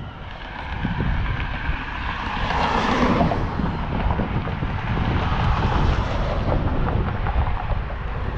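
Wind buffeting the microphone over passing road traffic: one vehicle swells up and fades about three seconds in, and another passes around six seconds.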